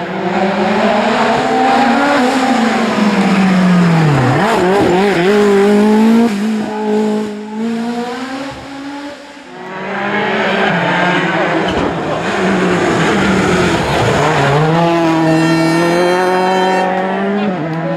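Rally car engine driven hard, revving up and down through gear changes, with brief lifts off the throttle about four seconds in and again near nine seconds.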